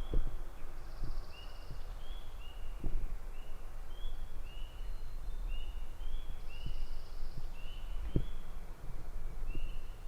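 Small birds singing: many short, high whistled notes repeating about twice a second, with two brief buzzy trills, over a steady low rumble and a few soft knocks.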